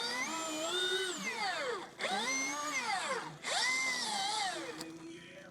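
Milwaukee M18 Fuel 20-inch dual-battery chainsaw's electric motor revving in three short bursts, each whine rising quickly, sagging and then winding down; the last one trails off near the end.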